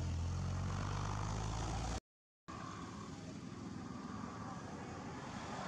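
A steady low engine hum, like a vehicle idling, that stops at a half-second dropout of total silence about two seconds in; after it only an even outdoor background hiss remains.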